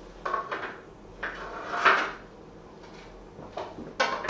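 Food dishes clinking and knocking as they are handled and set down: a few separate clatters, the loudest about two seconds in and another near the end.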